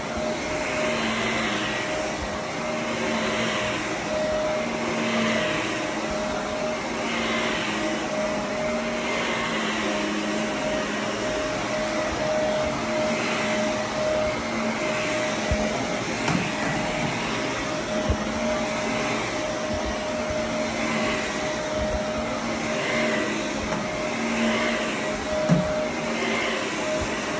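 Corded upright vacuum cleaner running steadily on carpet, its airflow rising and falling about every two seconds as it is pushed back and forth, with a few light knocks.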